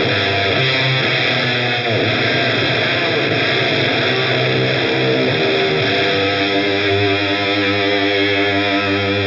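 Electric guitar played through an Audio Disruption Devices Transformations fuzz pedal, giving a thick, gated octave-up fuzz. It plays held, heavily distorted notes and chords, changing to new notes about 2 s and 6 s in.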